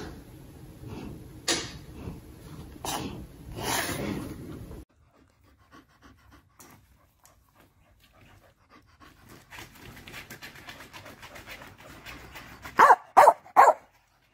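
Sleeping golden retriever breathing heavily, with a loud snuffling breath every second or so. Then a dog panting in quick breaths, and near the end three short, loud sounds close together.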